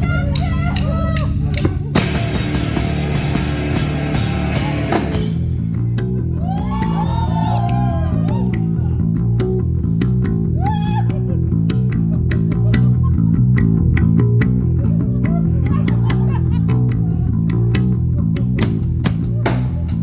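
Live rock band playing: electric bass and electric guitar over a drum kit. A dense wash of cymbals and guitar fills the first few seconds, then a heavy bass line carries on with bending guitar notes above it and cymbal hits near the end.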